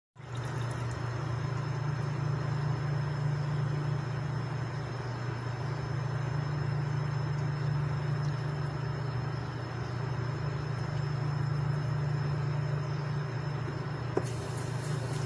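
Tap water pouring in a steady stream into a pot of stew, a continuous low rumble with splashing noise over it.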